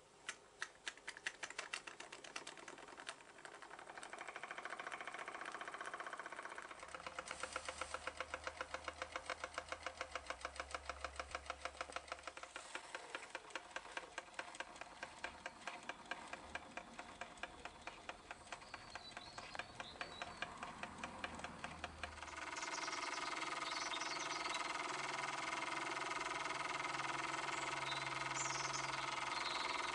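Small model steam engine with an oscillating cylinder running on steam: its exhaust puffs and clicks in a fast, even beat. About three-quarters of the way through, the beat gives way to a steadier, louder hiss of steam.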